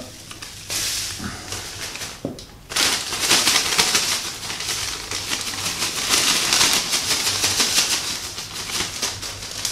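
Clear plastic food bag crinkling as it is handled, then rustling hard and steadily from about three seconds in as it is shaken with cubes of luncheon meat and vanilla sugar inside.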